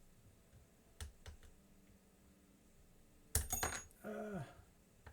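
Lock picks and tension wrench working in an American Lock 1100 series padlock: a couple of faint clicks, then a sharp cluster of metallic clinks with a bright ringing about three and a half seconds in. A brief falling hum of voice follows.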